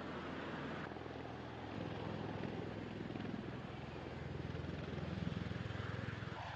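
Tiltrotor aircraft's rotors and turbine engines running, a steady drone with a fast rotor-blade beat that swells louder about five seconds in.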